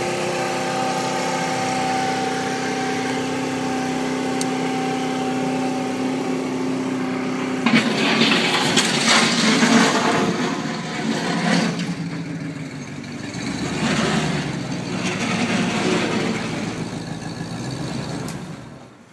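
Propel Del Ray 49.5cc scooter engine idling steadily, then revved from about eight seconds in, rising and falling in loudness in several swells before settling near the end.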